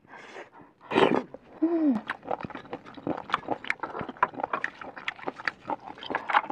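Close-miked eating sounds: a wet slurp about a second in and a short falling hum, then rapid, crunchy chewing of smoked snail meat with many small clicks.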